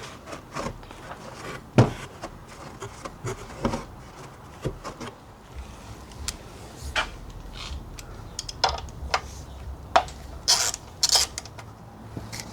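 Irregular clicks, knocks and metallic clinks of hand tools and parts being handled during work on a car, with a few sharper clinks near the end.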